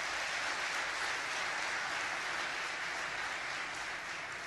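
Large audience applauding steadily, beginning to die down near the end.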